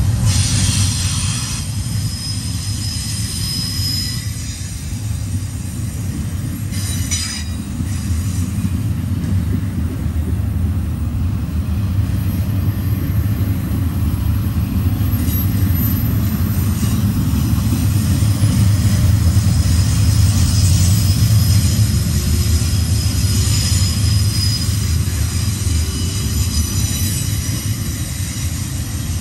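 Double-stack container freight cars rolling past close by with a steady heavy rumble, and thin high wheel squeals near the start, about seven seconds in and again late on.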